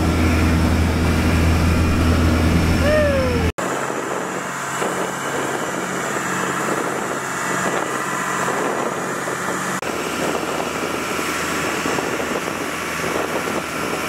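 Fishing boat's engine running steadily, with a strong low drone. About three and a half seconds in, the sound cuts abruptly to a quieter engine hum under wind and water noise.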